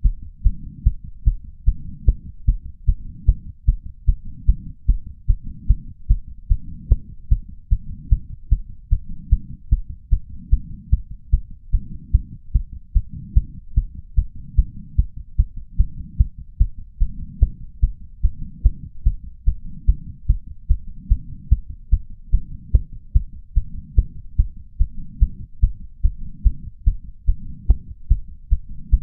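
An adult man's heart racing after exercise at about 150 beats a minute: a fast, even train of low thumps. It is picked up through a small ceramic bowl with a lapel mic.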